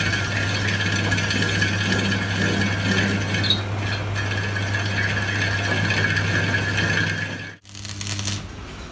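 Metal lathe running with a tractor wheel plate spinning in its chuck: a steady low hum and a steady high whine over a scraping sound. About seven and a half seconds in, it cuts off and gives way to a short crackling hiss of arc welding.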